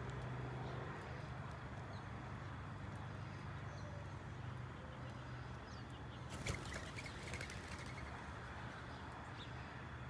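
Mourning doves and sparrows flushing off the ground about six and a half seconds in: a brief flurry of wing flaps. It sits over a steady low hum, with a few faint chirps.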